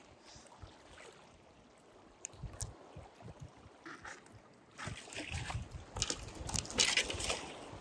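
Seawater splashing and sloshing among shore rocks in irregular bursts, quiet at first and louder over the last three seconds.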